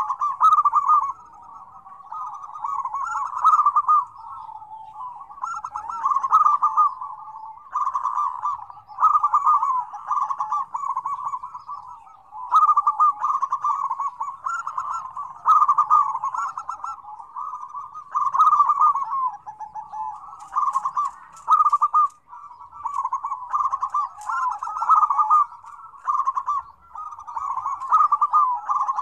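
Several zebra doves (perkutut) cooing at once in a busy, overlapping chorus. Their phrases, each about a second long, follow one another every second or two with no real break.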